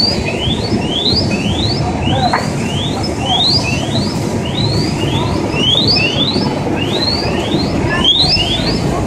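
Several firefighters' PASS (personal alert safety system) alarms on breathing apparatus sounding out of step: quick rising electronic chirps about twice a second, some overlapping, over a steady low rumble.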